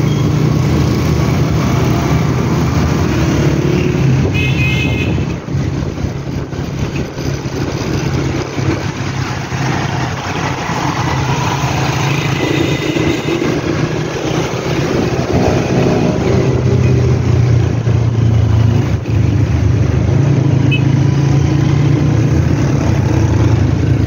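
Honda CG125 motorcycle's single-cylinder four-stroke engine running steadily while being ridden through street traffic. A brief high tone sounds about four and a half seconds in.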